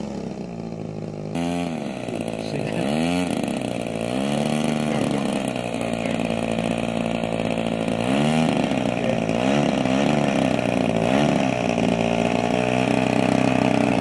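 DLE 35cc single-cylinder two-stroke petrol engine of a large RC bush plane running at low throttle while taxiing. It is blipped up in revs and back down several times, and grows louder as the plane comes closer.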